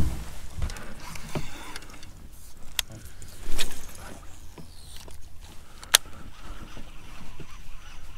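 Fishing gear handled from a kayak: scattered sharp clicks and knocks, starting with a loud knock, and a short rushing sound about three and a half seconds in, over a steady low rumble of wind.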